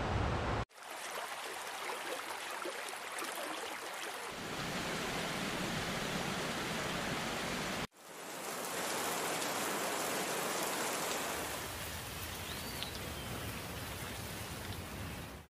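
Steady rush of flowing water: a stream, then after an abrupt cut about halfway through, a waterfall and rain. A second, briefer cut comes under a second in.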